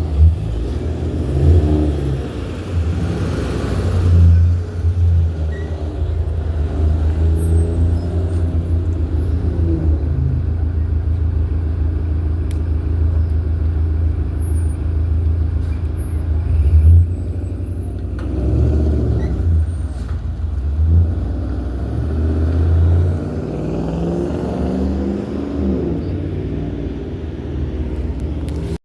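City buses' diesel engines running and pulling away in street traffic: a low rumble that swells and fades several times as vehicles accelerate past.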